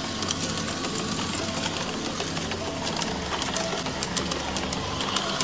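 G-scale model train passing close by: the locomotive's electric motor whirs and the wheels tick over the rail joints in a quick, uneven run of clicks. Background music plays underneath.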